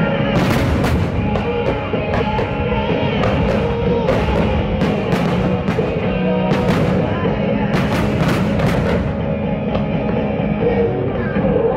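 Loud rock music accompanying a music-synchronised fireworks display, with many sharp firework bangs and crackles cutting through it.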